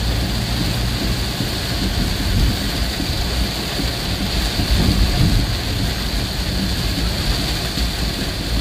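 Heavy rain falling steadily on a moving vehicle, heard from inside the cab, with a low engine and road rumble under it.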